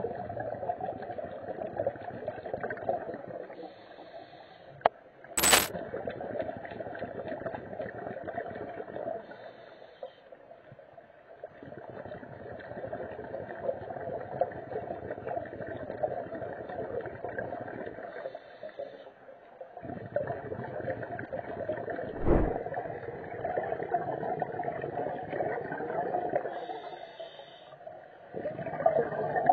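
Scuba diver's regulator breathing heard underwater: long bubbling, gurgling exhalations every seven or eight seconds, with a short faint hiss in each pause between them. One sharp click comes about five seconds in, and a dull thump about two-thirds of the way through.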